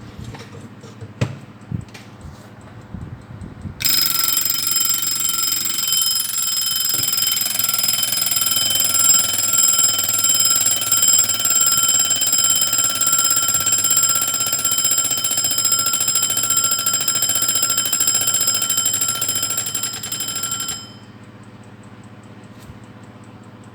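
Slava 'Pioneer' rectangular alarm clock's bell ringing loud and steady for about seventeen seconds, starting about four seconds in and cutting off suddenly near the end. A few light clicks come before the ring starts.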